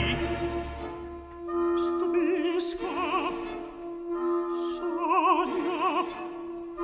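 Operatic solo singing in a classical aria: a high voice holding long notes with wide vibrato over a soft orchestral accompaniment.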